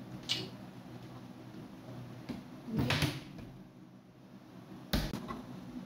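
Kitchen handling noises over a low steady hum: a short click, a louder brief scrape about three seconds in, and a sharp knock near five seconds.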